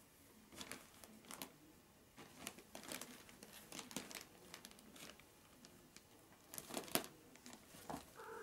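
Crumpled paper crinkling and rustling in irregular soft bursts under the paws of Maine Coon kittens as they clamber about on it.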